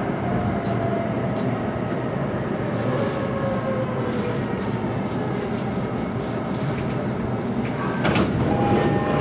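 Interior of a JR East E233-3000 series electric train slowing to a stop, its motor whine falling in pitch over the first few seconds. About eight seconds in, as it halts, comes a short burst of noise, followed by a steady tone.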